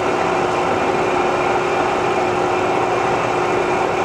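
Bridgeport Series I variable-speed milling head running with its spindle in high speed, driven by a 2 hp three-phase motor. It gives a steady machine hum with a constant whine that holds at one pitch.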